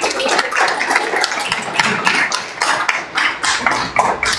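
A small audience clapping: a dense, irregular patter of separate hand claps.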